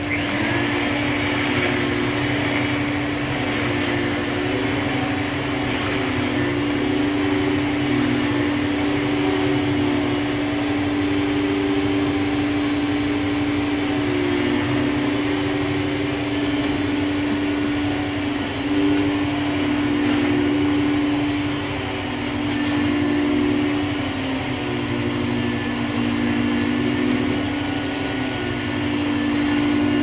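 Hoover Supremacy canister vacuum cleaner running steadily, its motor hum wavering slightly in pitch now and then as it works.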